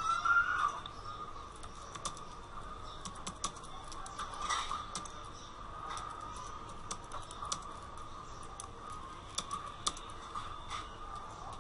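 Computer keyboard typing: irregular keystroke clicks, some in quick runs, over a faint steady hum. A brief louder sound comes right at the start.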